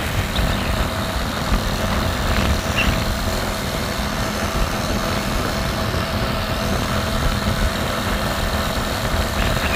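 Motorcycle riding at a steady cruising speed: a steady engine hum under road noise and heavy wind rumble on the microphone.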